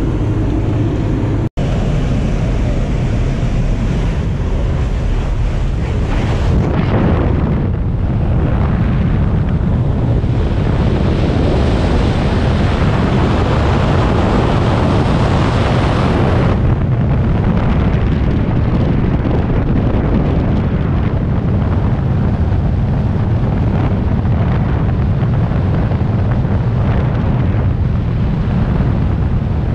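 Skydiving freefall wind rushing loudly over a helmet-mounted camera's microphone. For the first several seconds the jump plane's engine and open-door slipstream are heard instead, with a momentary cut-out in the sound about a second and a half in.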